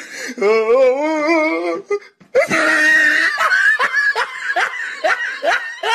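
A person laughing. First comes a high, wavering giggle; after a short break about two seconds in, a loud run of repeated laughs follows.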